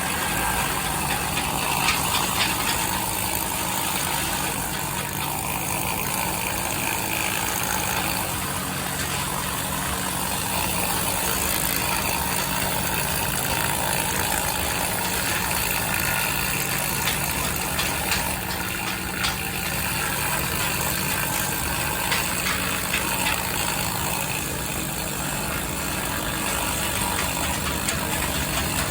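An engine running steadily, with a few faint clicks over it.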